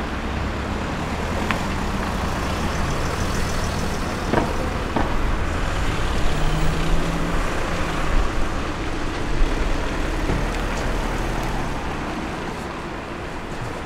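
Street traffic: cars driving past close by, a steady low rumble of engines and tyres that swells in the middle, with a few light clicks.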